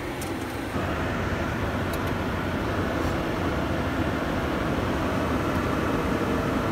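Steady drone of a light airplane's engine and rushing air heard inside the cockpit, getting louder about a second in.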